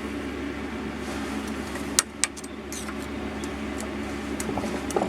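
Gas blowtorch burning steadily while it heats a thin hacksaw blade to soften (anneal) the steel, with two sharp clicks about two seconds in.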